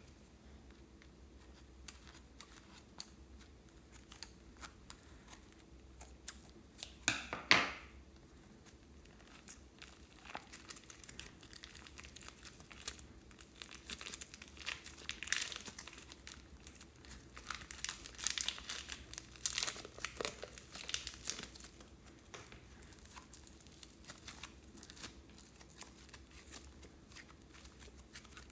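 Plastic piping bag crinkling and crackling as it is squeezed and kneaded by hand, with slime squishing inside it. The loudest crinkle comes about seven seconds in, and the crackling is busiest in the middle, then thins out.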